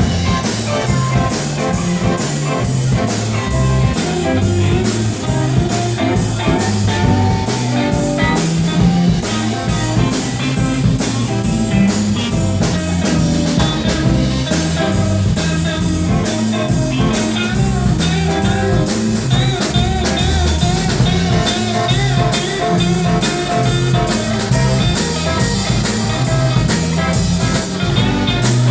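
Live blues band playing an instrumental stretch: guitar over bass and a drum kit keeping a steady cymbal beat.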